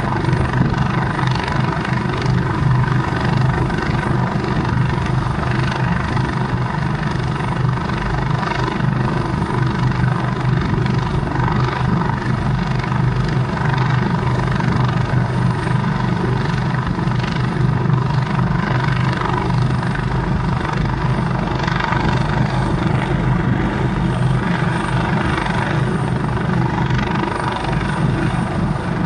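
Large rescue helicopter hovering overhead: a steady, loud rotor and engine sound with a strong low hum.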